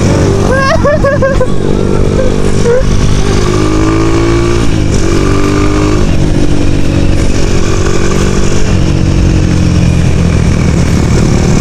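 Motorcycle engine running while riding, heard loudly through its aftermarket racing muffler, its pitch shifting up and down several times with throttle and gear changes.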